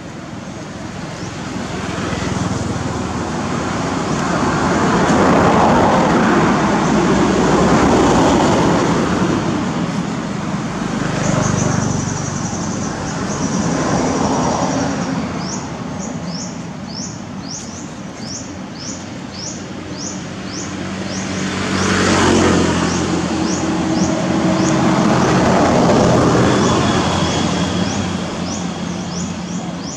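Road vehicles passing one after another, each swelling up and fading away, the one about 22 seconds in the closest. From about 11 seconds in, short high chirps repeat about twice a second over the traffic.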